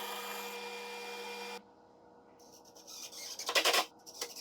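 A power tool's motor running steadily, cut off suddenly about one and a half seconds in. Then a few short scraping, rasping strokes on wood, the loudest one near the end.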